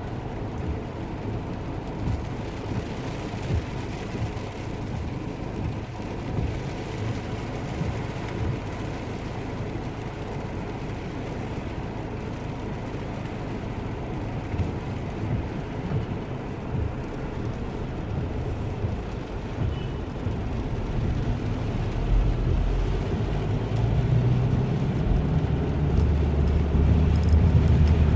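Low, steady rumble of a car or road traffic, growing louder over the last six seconds or so.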